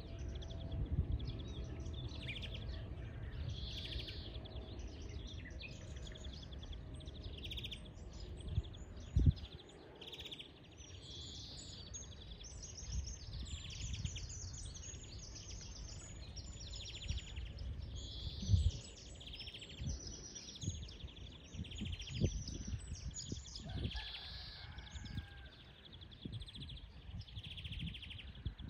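European greenfinch singing: repeated twittering trills and wheezy phrases over a low rumble, with two sharp thumps, one about a third of the way in and one about two thirds in.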